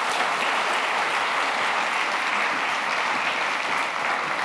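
Auditorium audience applauding steadily, a dense even wash of clapping.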